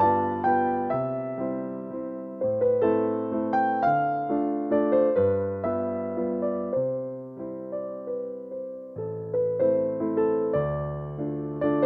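Background piano music: a gentle melody of struck notes over a steady bass pattern.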